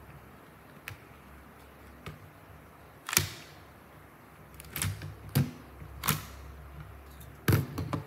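Plastic Lego bricks clacking and knocking as a brick-built toy belt buckle is handled, pulled apart and set down on a hard tabletop: a few faint ticks, then five sharp knocks in the second half.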